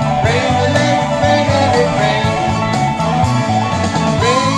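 Country backing track in an instrumental break between sung lines, with a steady bass rhythm and sliding lead notes.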